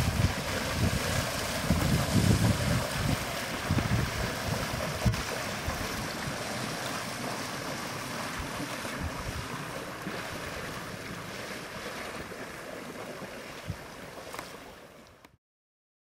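Wind buffeting the microphone over the rush of water at a wooden sailboat's bow as it moves past under electric drive, with no engine sound. The gusts are strongest at the start, the sound slowly fades, and it cuts off suddenly about fifteen seconds in.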